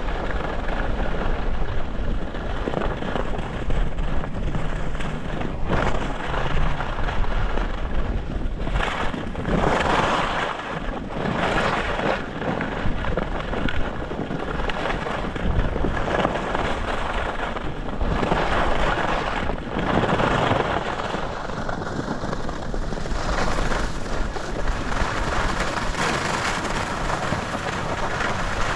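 Wind rushing over the microphone while skiing downhill, with swells of ski edges scraping the snow every few seconds.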